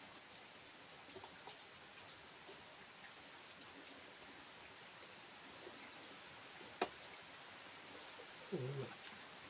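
Faint steady rain with scattered drops ticking. A single sharp click comes about seven seconds in, and a brief voice near the end.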